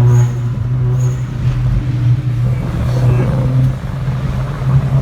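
Volkswagen Jetta GLI's turbocharged 2.0-litre four-cylinder engine running at a steady pitch while driving, over road rumble.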